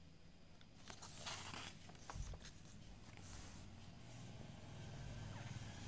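Faint rustling and soft knocks of a picture book's pages being turned and handled, over a faint low hum.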